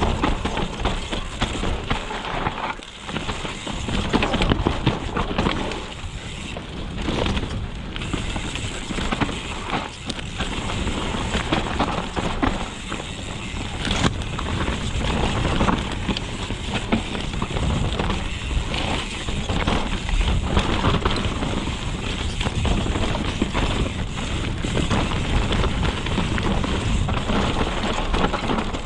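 Mountain bike ridden fast over rough dirt trail: continuous wind rush on the microphone and tyre noise, broken by frequent clatters and knocks from the bike over bumps.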